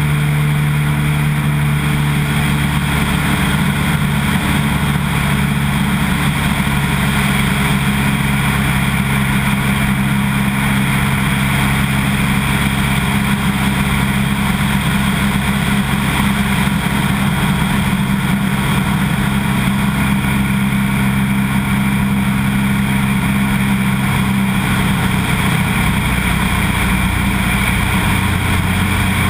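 Light floatplane's piston engine and propeller running steadily in flight, with heavy rushing wind on a microphone mounted outside the aircraft. The engine note shifts slightly near the end.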